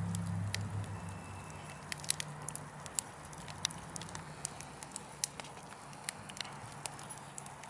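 Burning wood crackling, with irregular sharp pops and snaps over a soft hiss of the fire. A low hum sits underneath at first and fades out within the first few seconds.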